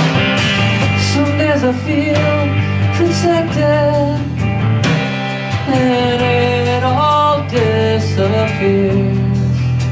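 Live rock song: a man singing held notes that slide between pitches, over a strummed electric guitar.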